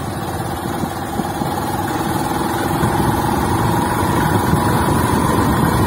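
Two-wheeler's engine running while riding at low speed. Its note rises slowly in pitch and loudness as the bike picks up a little speed, over road and rumble noise.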